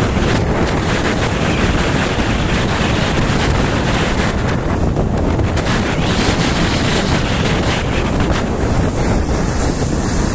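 Wind rushing over the microphone of a moving motorcycle, a loud steady roar of air with no break.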